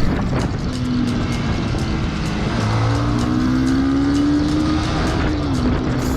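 Motorcycle engine accelerating: its pitch climbs steadily over a few seconds, then drops quickly near the end, as at a gear change.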